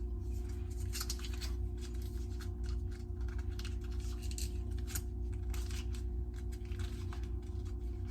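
Boiled potatoes being mashed with butter in a pot: a kitchen utensil clicking and scraping irregularly against the pot, over a steady low hum.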